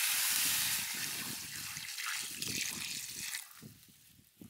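Water poured in a steady stream into a steel wok of browned beef ribs, splashing into the pan as the braising liquid is added. The pouring fades out about three and a half seconds in.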